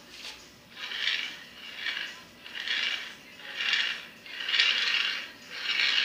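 Bearing carriage of a homemade CNC linear rail rolling along an aluminium angle rail, pushed back and forth by hand: a rattling rumble that swells and fades with each pass, about six passes roughly a second apart.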